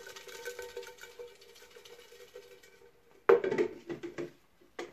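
Folded paper lots being stirred and rummaged in a container as a winner is drawn. A faint steady hum sits underneath and dies away, and about three seconds in the handling turns into a short spell of loud rattling and rustling, with one more brief rattle near the end.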